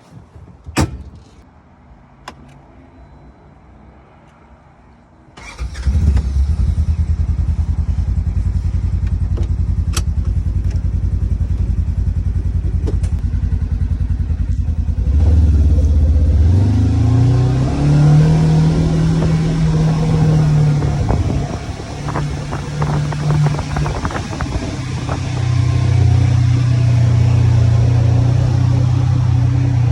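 Polaris General XP 4 1000 side-by-side's parallel-twin engine starting about five seconds in, after a few clicks, and running steadily. About ten seconds later it revs up, its pitch rising and falling, then settles into a steady run as the vehicle moves off.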